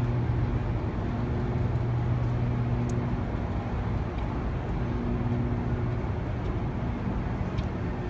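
Steady low electrical hum from large high-voltage power transformers outside the dam's powerhouse, a single drone with fainter overtones above it, over a continuous rushing background noise.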